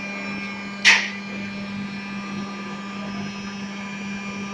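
Fully automatic injection moulding machine for gallon caps running with a steady hum, with one short hiss about a second in.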